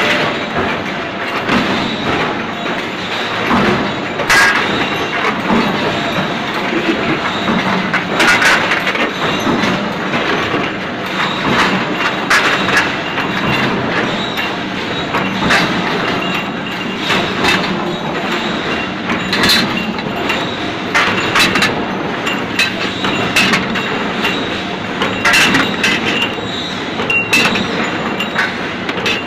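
Bolt deforming and thread rolling machine running with its inclined chain feed conveyor: a steady mechanical clatter broken by irregular sharp metallic clicks and clanks.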